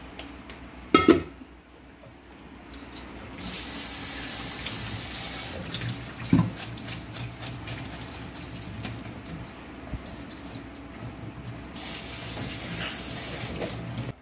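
Kitchen tap running into a stainless-steel sink, rinsing freshly boiled glass noodles in a metal colander; the water starts about three seconds in. A loud metal clank comes about a second in, and a smaller knock about six seconds in.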